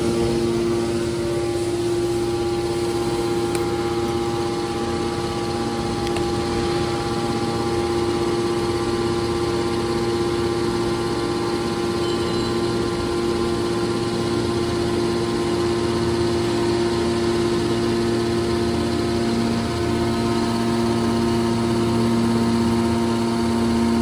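Hydraulic power unit of a scrap steel baler, an electric motor driving the hydraulic pump, running with a steady hum that holds several fixed tones.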